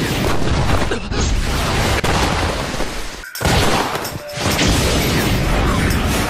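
Dramatic anime sound effects for a catcher's hard throw: a dense, continuous rush of noise that cuts out briefly a little after three seconds in, then surges back.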